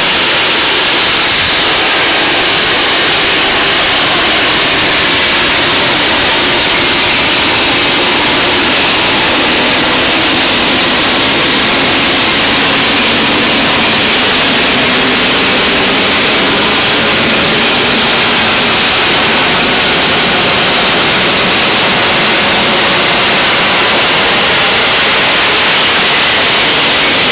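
Harrier jump jet's single Pegasus vectored-thrust turbofan running at hover power close overhead, a loud, steady jet noise as the aircraft hovers and descends vertically to land.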